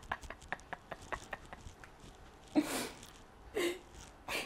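A woman laughing: a quick run of short, breathy laugh pulses, then louder, breathier bursts of laughter about two and a half seconds in, again a second later and once near the end.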